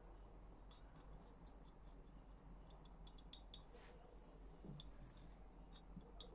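Near silence with a few faint, light clicks of small metal engine parts being handled.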